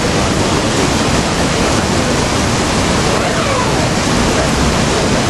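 Dense artificial rain from the Rain Room installation pouring onto a metal grate floor: a loud, steady hiss of falling water. Faint voices come through it around the middle.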